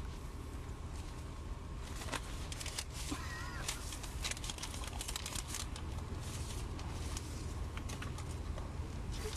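Irregular rustling and crinkling of a dark, shiny costume moving about inside a car, over a steady low hum from the car, with a brief warbling squeak about three seconds in.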